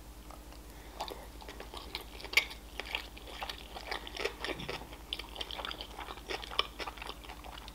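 Close-miked chewing of a mouthful of sushi roll: soft wet mouth smacks and small crunchy clicks at an irregular pace, with one louder click about two and a half seconds in.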